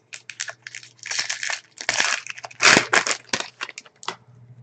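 Hand-handled 2008-09 Upper Deck SPx hockey trading cards being sorted: a run of crinkling, rustling handling noise, loudest around two to three seconds in.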